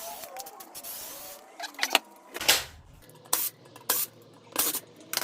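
Brake rotor being unbolted from a mountain bike's rear hub: squeaky metal chirps in the first second, then a series of sharp metallic clicks and clinks, roughly one every half-second to second.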